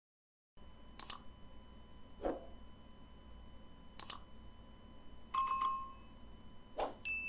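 Subscribe-button animation sound effects: sharp mouse-click sounds about a second in and about four seconds in, a few soft thumps, and a short electronic bell ring about five and a half seconds in, over a faint steady hum.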